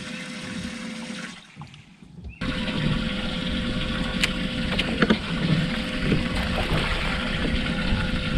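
Steady rushing noise of water and open air around a bass boat on a lake, with a steady low hum underneath and a few sharp ticks from fishing tackle during a cast and retrieve. The sound almost drops out for about a second, then returns louder.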